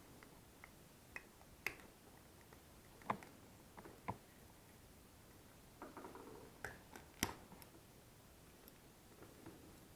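Sparse small clicks and taps from a mains plug's plastic and metal parts being handled, with a short rustle about six seconds in.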